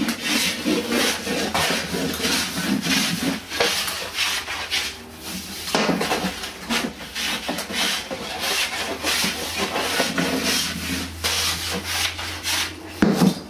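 Small hand plane shaving along the edge of a timber door stop in repeated strokes, taking the sharp corner off to arris it. A single knock near the end.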